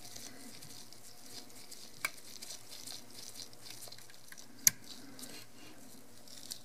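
Quiet handling of a stripped Canon EOS 6D camera body while a small screwdriver takes out the mirror box screws: faint light ticking and scraping, with two sharp clicks about two seconds and four and a half seconds in, the second the louder.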